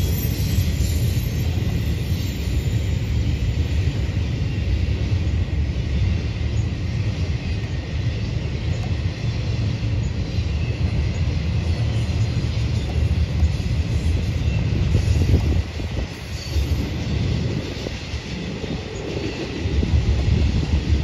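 Intermodal freight train of double-stack container and trailer cars rolling past, its wheels on the rails making a steady low rumble.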